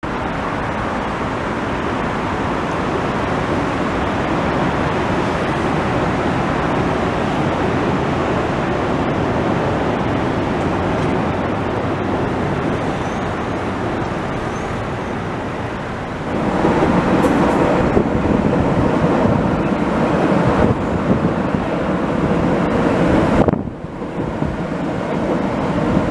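Steady city traffic noise, then, about two-thirds of the way in, a louder rumble as a Vienna U-Bahn train runs across a steel truss bridge. The rumble lasts about seven seconds and cuts off abruptly near the end.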